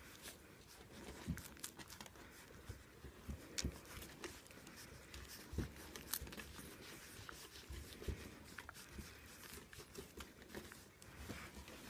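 A litter of Siberian husky puppies suckling from their mother: faint, irregular wet clicks and smacks with soft rustling of fur, and a few louder soft bumps.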